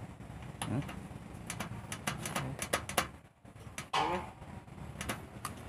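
Irregular light clicks and ticks of multimeter probe tips tapping and pressing on the solder pads of an LED backlight strip, with a brief pitched sound about four seconds in.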